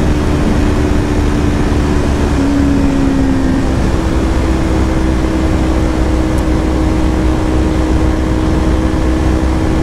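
Kawasaki Ninja 400's parallel-twin engine running steadily at road speed, under heavy wind rush on the rider's microphone. Its pitch drops a little about two and a half seconds in, then settles slightly higher a second later.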